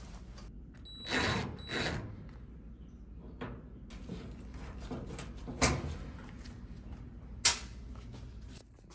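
Handling noises from taking apart a dryer cabinet. There are two short bursts of scraping or whirring about a second in, then several sharp clicks and knocks, the loudest near the end.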